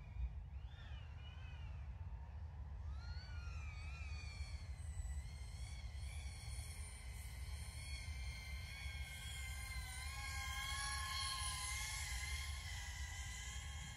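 Speedybee Bee25 2.5-inch cinewhoop's brushless motors and ducted propellers whining, the pitch rising and falling with throttle changes in the first few seconds, then holding steadier, a little louder around ten seconds in, over a low rumble.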